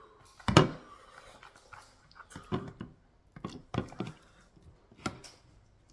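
A plastic lid set down with a sharp knock, then a plastic food container tipped over a ceramic bowl, thick leafy soup and chunks of beef dropping and sliding into the bowl with a series of soft thuds and knocks.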